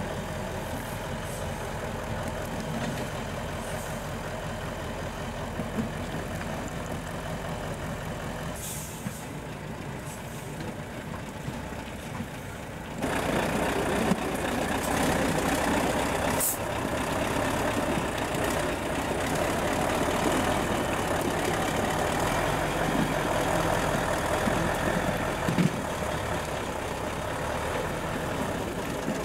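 Heavy off-road trial trucks' diesel engines running as they crawl over rocks: first a Tatra, then, louder from about 13 seconds in, an eight-wheel-drive Mercedes working close by. One sharp click a few seconds after the jump.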